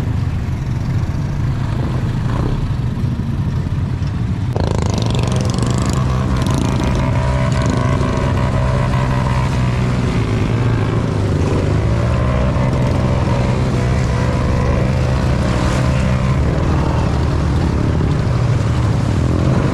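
ATV engine running steadily with small changes in pitch. A sudden rush of noise joins it about four and a half seconds in.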